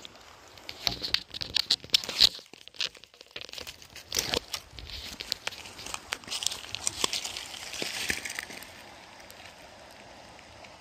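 Irregular crunching and crinkling close to the microphone: footsteps on gravel and handling noise from the phone. It settles to a faint steady background about three-quarters of the way through.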